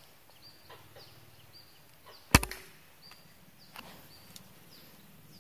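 A Sharp Tiger pump-up pneumatic air rifle fires a single sharp shot about two seconds in. Faint short bird chirps repeat in the background.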